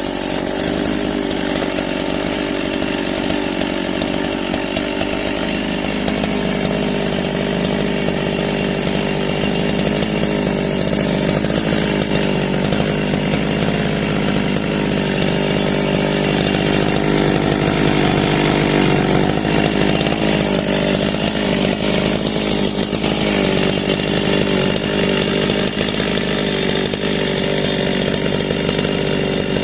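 Husqvarna chainsaw with a 35-inch bar running steadily through a cut, with a continuous engine drone that swells a little louder about halfway through.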